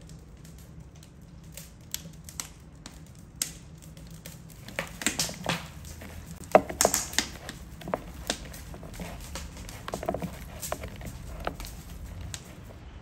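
Irregular clicks and knocks of cooking utensils being handled, busiest in the middle, a few with a short metallic ring, over a low steady rumble.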